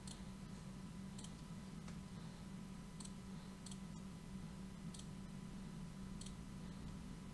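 Computer mouse clicking, one sharp click at a time, about six or seven irregularly spaced roughly a second apart, each placing a point of a spline in a CAD sketch. A steady low hum runs underneath.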